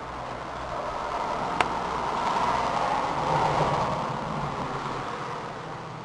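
A vehicle passing by: its noise swells to a peak about three seconds in and then fades away. A single sharp click comes about a second and a half in.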